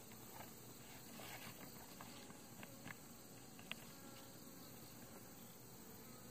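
Near silence with faint rustling and a few light clicks from a feed bag and paper cover being handled on top of a beehive, with one sharper click a little before four seconds in.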